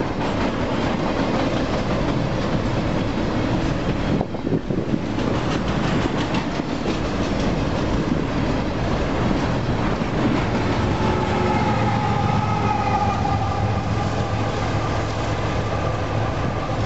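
Union Pacific double-stack container freight train rolling past, the wheels of the well cars clicking rapidly over the rail in a continuous rumble. From about ten seconds in, a steady low hum and faint high whining tones join the noise.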